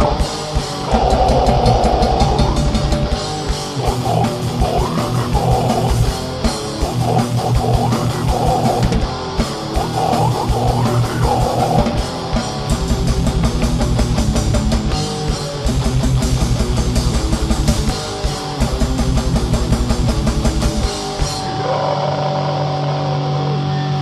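A heavy metal band playing live: rapid bass-drum beats and crashing drums under distorted electric guitars. Near the end the drums drop out, leaving a held chord ringing.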